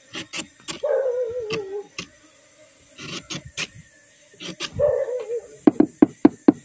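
Knife blade chopping and slicing into the hard cut end of a sugar palm flower stalk: scattered sharp cuts, then a quick run of about five strokes near the end. Twice in between, a wavering whine about a second long.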